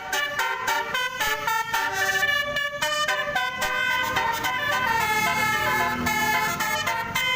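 A tourist bus's 'telolet basuri' multi-tone musical horn playing a melody of quick, changing notes, several sounding together.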